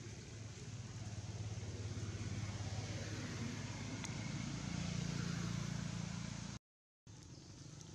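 Low, steady engine hum that grows louder over several seconds, then the sound cuts out completely for about half a second near the end.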